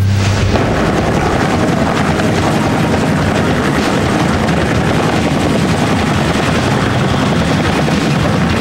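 Helicopter noise: a loud, steady rushing sound with no clear tone.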